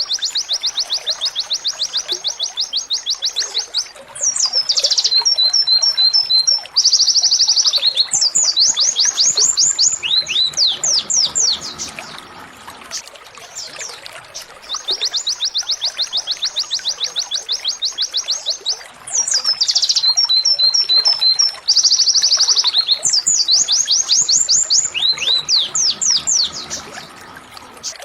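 Domestic canary singing 'tembakan': long, fast, high trills broken by short repeated chip notes and quick falling sweeps. The same sequence of phrases comes twice, as in a looped master recording.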